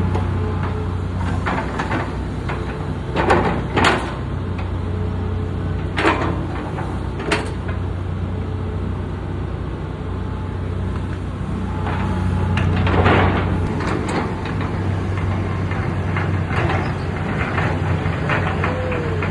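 Excavator's diesel engine running steadily, broken by repeated sharp clanks and knocks of the bucket and arm as it digs.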